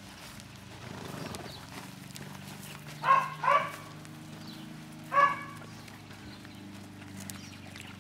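A dog barks three times: two quick barks about three seconds in, then one more about two seconds later.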